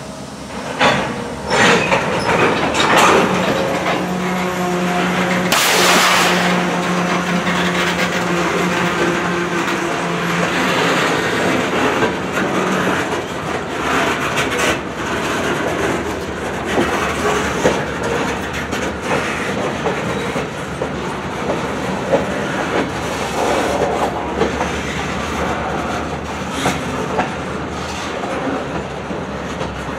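Freight cars, mostly covered hoppers, rolling slowly past: steel wheels clicking and clanking over the rail joints, with a short burst of hiss about six seconds in.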